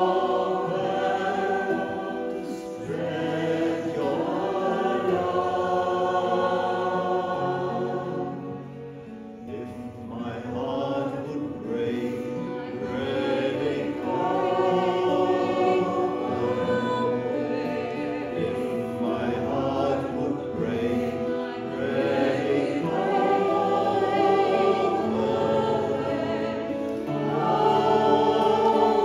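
A woman and a man singing a song together, accompanied by a harmonium and an acoustic guitar.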